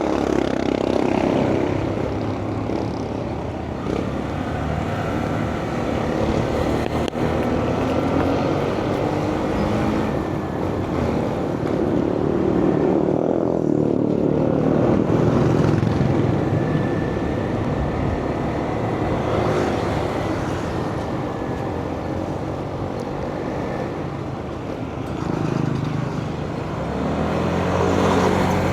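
Vehicle engine running on the move over steady road noise, its pitch rising and falling several times with changes in speed.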